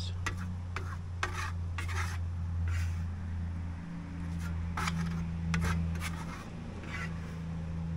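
Steel plastering trowel scraping Venetian plaster across a board wall in a series of short strokes, over a steady low hum.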